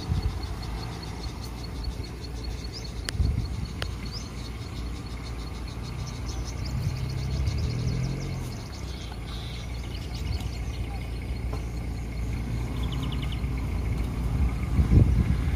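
Low rumble of car engines idling and creeping past slowly, with birds chirping and a rapid chirping trill about halfway through.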